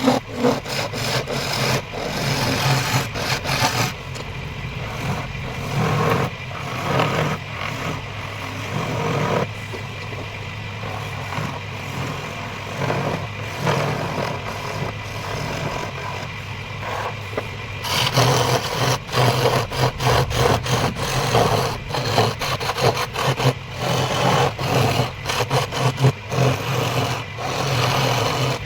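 Wood lathe running with a steady motor hum while a turning chisel scrapes and cuts the spinning wood in uneven spells, most steadily in the last third.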